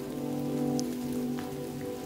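Wood campfire crackling, with two small sharp pops about a second apart, under background music of slow sustained chords.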